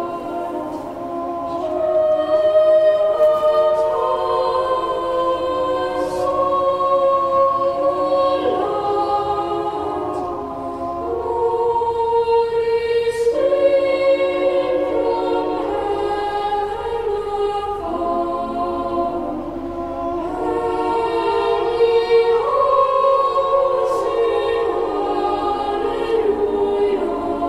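A choir singing a slow carol-like piece, sustained chords that change every second or two, with no drums.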